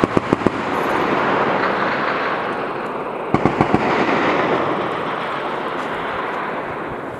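M2 .50 caliber heavy machine gun firing two short bursts of about five rounds each, one at the start and one about three seconds in. Each burst is followed by a long rolling echo.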